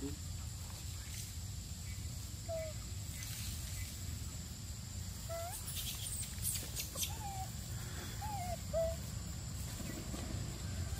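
Five or so short pitched animal calls spaced a second or two apart, each a quick rising or falling note. A thin steady high tone and a low rumble run underneath, and a few brief clicks or rustles come about six to seven seconds in.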